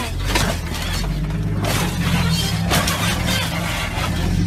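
Background music, with a few sudden crashing impacts from an off-road vehicle tipping over onto its side.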